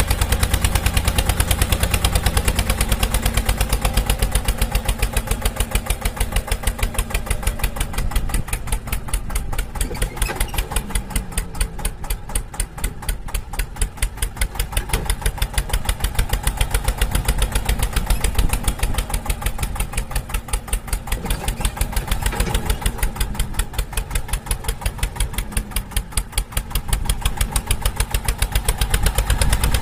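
Tractor engine chugging with a rapid, even beat, easing off and picking up again a few times.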